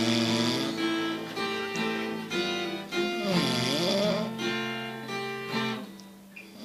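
Acoustic guitar strummed, with a sleeping person's snore sliding down and back up in pitch over it at the start and again about three seconds in. The playing drops away briefly near the end.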